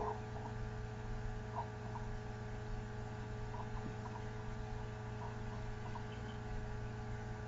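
Steady low electrical hum from the recording chain, with a few faint ticks.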